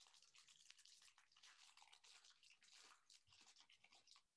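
Very faint crinkling and tearing of a Topps baseball-card pack's foil wrapper being peeled open by hand, barely above silence.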